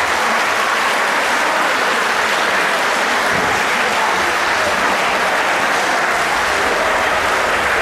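Large crowd applauding steadily in a gymnasium hall.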